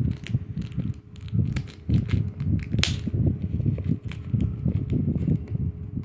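Clear plastic shrink-wrap on a lunch box being cut with scissors and handled, the film crinkling and crackling in an irregular run, with one sharp click near the middle.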